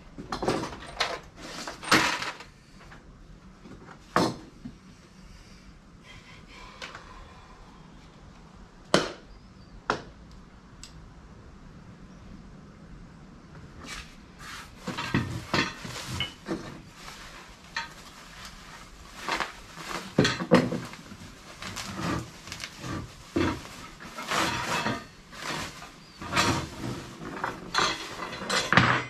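Metal spreader parts clinking and knocking on a wooden workbench while being unpacked from plastic wrapping, with the wrap rustling. A few separate sharp knocks come in the first half, then a busy run of clatter and rustling from about halfway on.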